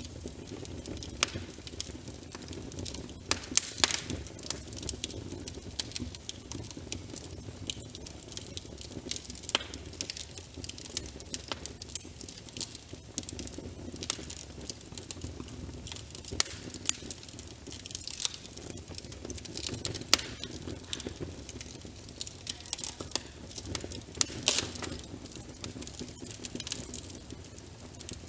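Wood fire crackling with frequent irregular sharp pops, over a steady low rush of rain pattering on a window.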